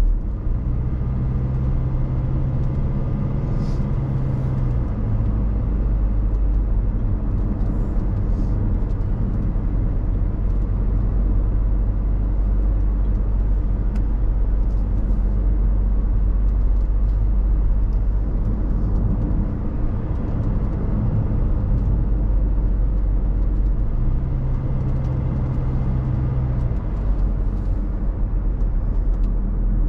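A car being driven: a steady low engine and road rumble. An extra low hum comes in for a few seconds near the start and again about 24 seconds in.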